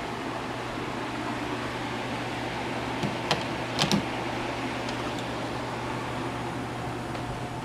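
Steady background hum, like a fan or air conditioning, broken by three short sharp clicks, one a little after three seconds in and two close together near four seconds.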